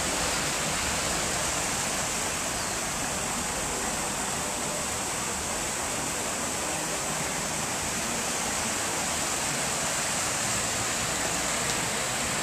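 Steady rush of fountain water splashing down stone tiers, recorded on a pocket camcorder's built-in microphone.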